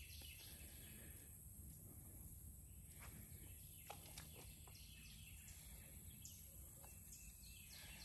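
Faint bird calls, several runs of quick descending notes, over near silence.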